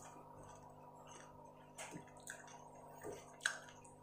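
Faint chewing and soft mouth clicks from someone eating a mouthful of noodles: a few small ticks scattered through the second half, over a faint steady hum.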